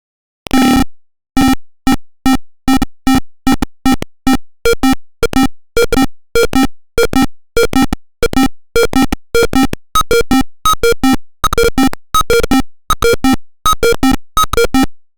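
Simulated piezo buzzer of an Arduino proximity alarm beeping in short electronic tones, about two to three beeps a second at slightly uneven spacing, sounding the warning that an object is within range of the ultrasonic sensor. The tone changes a little about four and a half seconds in.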